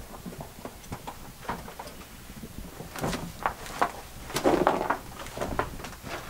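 Footsteps scuffing and crunching over loose rock on a mine tunnel floor, uneven steps with a louder cluster of scrapes a little past the middle.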